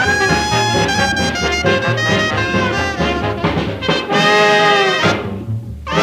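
Hot jazz small-band recording from 1932, played from a 78 rpm record, with trumpet and trombone leading in long held notes that bend down near the end of a phrase before the band comes back in loudly.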